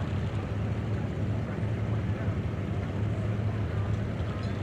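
A car running steadily, a low engine hum with a haze of noise over it that holds even throughout.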